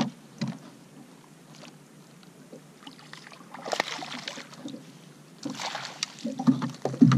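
Two short bursts of splashing at the water's surface beside a fishing boat as a hooked fish thrashes near the net, with knocks against the boat's deck, a cluster of them near the end being the loudest.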